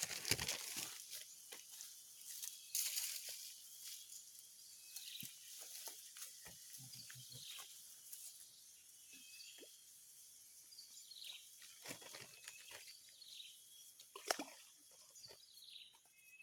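Faint outdoor ambience: small birds chirping now and then, with scattered clicks and rustles of handling. The loudest rustles come near the start, about 3 s in, and about 14 s in.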